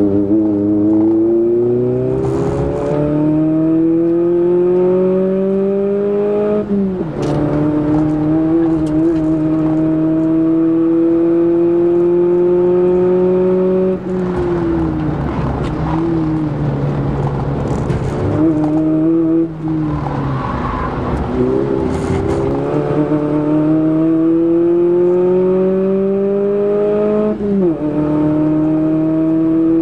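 Toyota Echo's 1.5-litre four-cylinder engine at full throttle, heard from inside the cabin. The revs climb steadily and drop suddenly at an upshift about seven seconds in and again near the end, with the revs falling off and the engine running unevenly for a couple of seconds around two-thirds of the way through.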